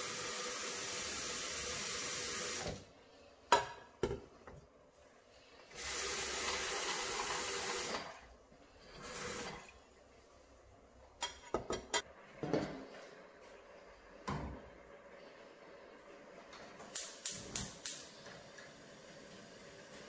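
Kitchen tap running water into steel pots, in two spells of a few seconds each with a short splash after, followed by clinks and knocks of the pots. Near the end, four quick clicks of a gas hob's igniter.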